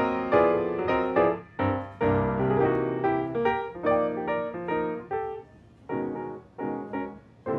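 Background piano music: notes and chords struck one after another, each fading away, growing sparser over the last few seconds.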